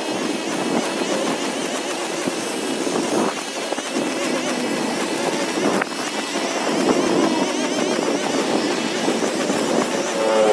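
Small gasoline lawn-equipment engine running at working speed, its pitch wavering up and down, with two short sharp knocks in the middle.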